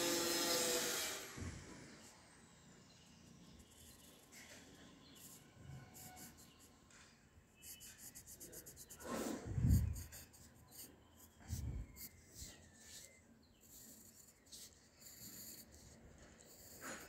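Pencil scratching on paper in short strokes as lines are drawn, with two low thumps near the middle. A louder noise at the very start cuts off about a second in.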